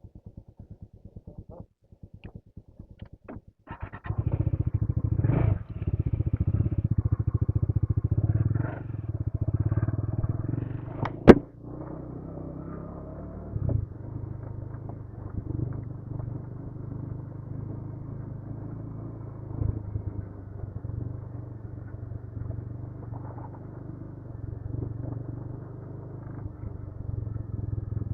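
Motorcycle engine, faint and evenly pulsing at first, getting louder about four seconds in as the bike pulls away. A single sharp click comes near the middle, after which the engine runs on steadily at a lower level.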